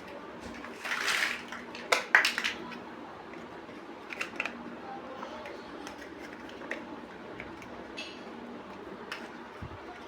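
Plastic building bricks being handled: a short rustle about a second in, then a cluster of sharp clicks around two seconds, with lighter clicks and taps after, over a steady low hum.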